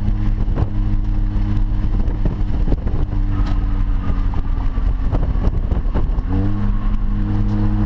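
2005 Mini Cooper S's supercharged four-cylinder engine, heard from inside the cabin while cruising at highway speed, with road noise under it. Its note sags slightly, then about six seconds in rises quickly and holds steadier and stronger. A few short knocks come through along the way.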